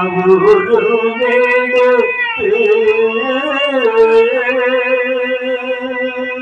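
A song with accompaniment: a voice holds long, wavering notes over a sustained instrumental tone, moving to a new note about two and a half seconds in.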